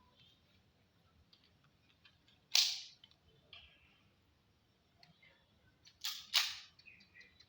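Three pistol shots on a shooting range: one about two and a half seconds in, then a quick pair about six seconds in. Each is a sharp crack that dies away within a fraction of a second.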